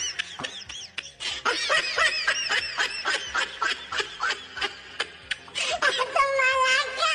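High-pitched giggling laughter: a quick string of short giggles, with one longer held squealing note about six seconds in.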